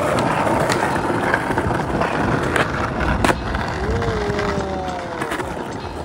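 Skateboard wheels rolling over stone-tiled paving with a steady rumble, and a few sharp clacks of the board hitting the ground during a freestyle trick, the loudest about three seconds in.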